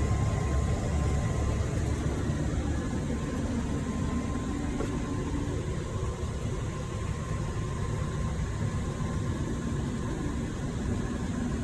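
Steady vehicle running noise: a constant engine drone with low rumble and hiss and no change in speed.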